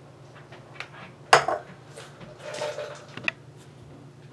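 Hands handling small objects on a tabletop, among them a cardboard firework tube: light taps and clicks, a sharper knock about a second in, and a short rustle near the middle.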